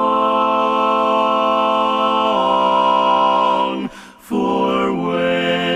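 A large a cappella chorus singing in harmony, holding a long chord on one word, moving to a new chord about two seconds in, breaking off briefly for a breath about four seconds in, then starting the next chord.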